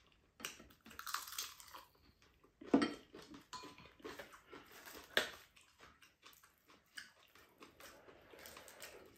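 Chopsticks and a spoon clicking and scraping against bowls and a frying pan, with chewing; a few sharper knocks, the loudest about three and five seconds in.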